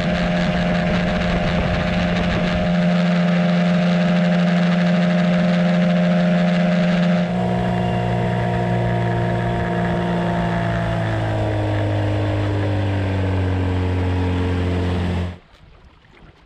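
Outboard motor driving a small aluminium boat at speed, with wind and water rushing past. From about two-thirds of the way through, the engine's pitch falls steadily as it is throttled back, then the sound drops away abruptly near the end, leaving only faint wind and water.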